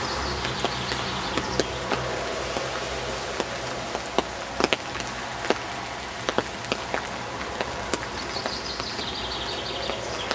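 Rain falling, a steady hiss with irregular sharp drop impacts close by.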